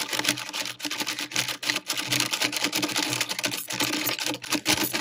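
Plastic Akedo Ultimate Arcade Warriors battle controllers pumped rapidly by hand: fast, uneven plastic clicking and clacking as the figures' arms and weapons swing and strike each other.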